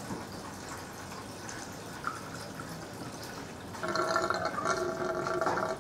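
Water draining out of a plastic tub camp sink through its drain hole, with a louder, steady gurgling tone in the drain from about four seconds in, as the last of the water goes down.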